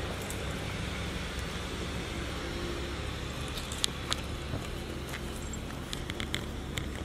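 Steady outdoor background noise with a low rumble, like distant road traffic. A few short sharp clicks come about four seconds in, with a quick cluster of them near the end.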